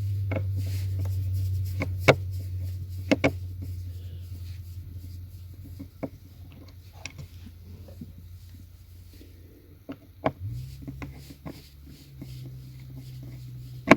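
Scattered sharp clicks and knocks of hands and a screwdriver working on the plastic centre-console panel and its screws, over a steady low hum that steps up slightly in pitch about ten seconds in.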